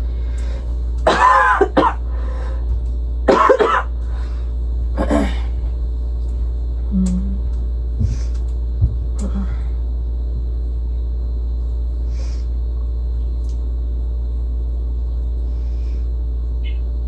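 A person coughing in two short fits, about one and three and a half seconds in, then a few light knocks, over a steady low hum.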